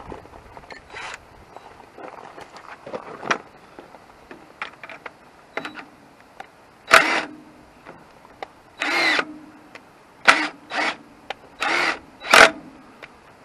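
Lubricant sprayed in short hissing bursts onto the tractor's manifold nuts and studs, six or seven spurts in the second half, with light metallic clicks of tool and nut handling between them.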